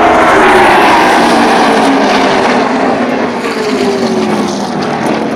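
A pack of NASCAR Xfinity Series stock cars with V8 engines passing at full speed. The engine pitches fall as the cars go by, and the sound fades as they head away down the track.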